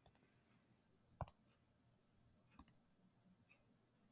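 Near silence with two short, faint clicks about a second and a half apart.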